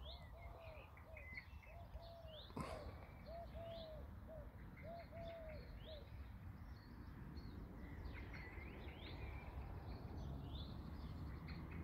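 Faint early-morning birdsong: small birds chirping high and often throughout, with a repeated low arched call for the first six seconds. There is one sharp click about two and a half seconds in, and a faint steady low rumble that grows slightly toward the end.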